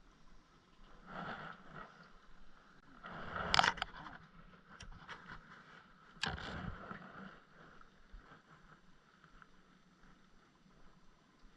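Scraping and knocking handling noises in a few short bursts, the loudest about three and a half seconds in and another starting suddenly about six seconds in, then a faint steady background.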